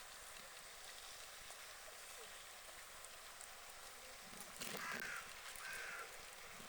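Two short, harsh bird calls about a second apart, about two-thirds of the way in, over a steady background hiss.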